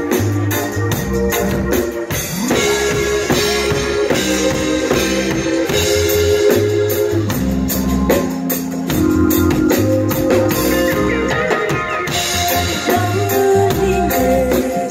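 Live reggae band playing: drum kit with a steady beat, guitar and keyboard organ, with tambourine.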